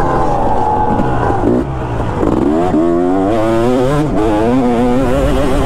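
2005 Kawasaki KX250 single-cylinder two-stroke dirt bike engine under hard throttle. The revs fall off as the throttle is chopped about one and a half seconds in, then climb back up and hold high with a wavering pitch as the bike accelerates.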